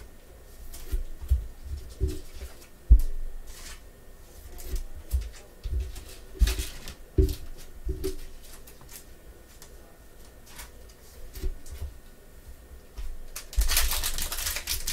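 Trading cards handled by gloved hands: soft slides, taps and clicks of cards against each other and the table. Near the end comes a louder crinkling rustle as a foil card pack is torn open.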